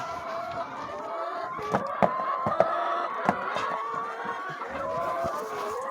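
A flock of chickens calling and clucking together, many overlapping wavering calls, with a few sharp knocks in the middle.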